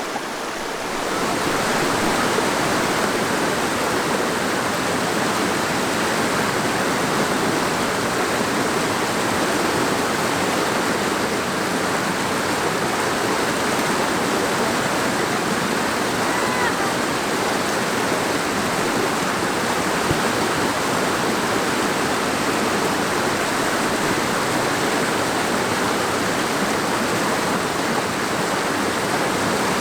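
Steady rush of fast-flowing water, as from a mountain stream tumbling over rocks; it swells about a second in and then holds an even level.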